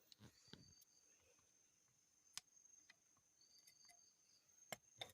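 Faint, high-pitched cricket chirping over a steady high insect trill, with a few sharp clicks, the loudest near the end.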